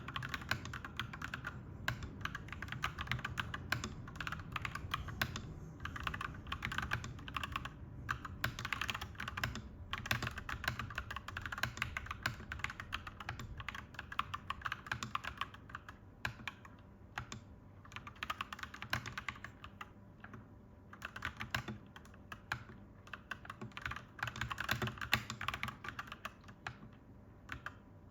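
Clacky mechanical keyboard being typed on in quick runs of keystrokes, the typing thinning out for several seconds past the middle, over a faint steady low hum.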